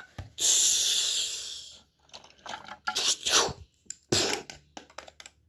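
Plastic Duplo toys being handled and moved on the floor: a hissing rush that fades over about a second and a half, then scraping and rubbing, and a sharp knock about four seconds in.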